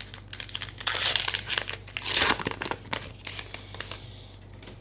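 Foil booster pack of trading cards being torn open, its wrapper crinkling and crackling. The crackling is loudest about one and two seconds in and dies away after about three seconds.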